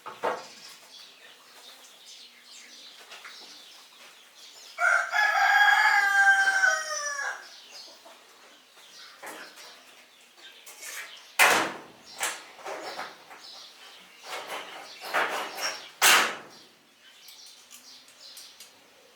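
Rooster crowing once, starting about five seconds in: a pitched crow of about two and a half seconds whose pitch falls at the end. Several short, sharp sounds follow later, amid quieter chicken noise.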